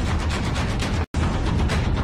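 Music with a steady beat, dropping out completely for a split second about a second in.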